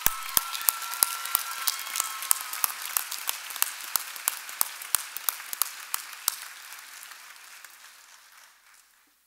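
A crowd applauding, with several close, sharp hand claps standing out from the dense clapping; the applause thins and dies away near the end.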